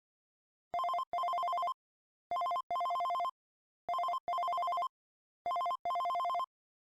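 Phone ringtone imitating an old telephone ring: a rapidly warbling two-tone trill in a short-then-long double ring, repeated four times about a second and a half apart.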